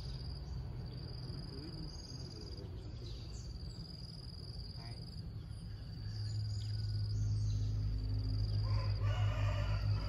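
A rooster crows once near the end, over a steady high buzz of insects. A low rumble swells in from about two-thirds of the way through.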